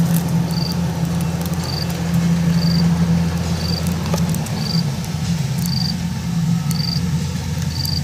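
Kubota DC70 combine harvester's diesel engine running steadily while cutting rice. A short, high chirp repeats about once a second over the engine.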